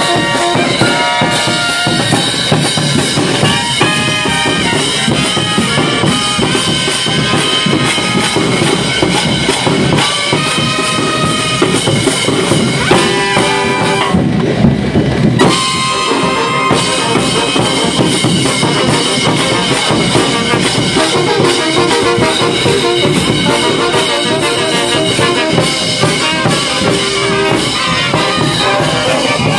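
Live brass band playing in the street: trumpets and other brass carry the tune over a steady beat of bass drum and percussion.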